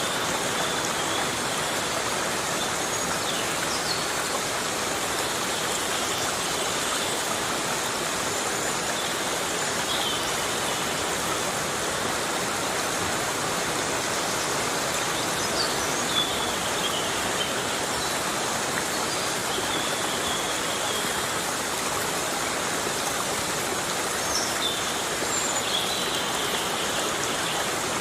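Heavy rain falling steadily on a forest, an even rushing hiss, with a few faint short high chirps now and then.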